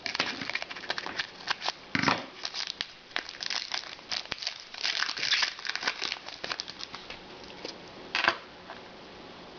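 Trading-card pack wrapper crinkling and tearing as packs are opened and the cards handled. The crinkling is dense and irregular, then dies down near the end.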